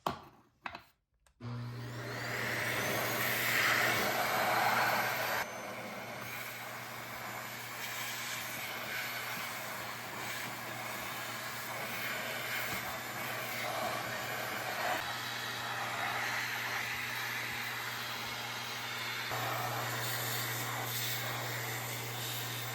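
A couple of clicks, then a vacuum cleaner starts and runs steadily, its hose attachment sucking up dust. The level drops about five seconds in, and the sound changes again near the end as the nozzle is moved.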